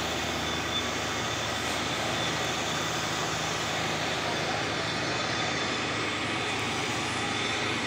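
Steady outdoor background noise with no distinct event, an even rushing hiss with a faint steady hum under it.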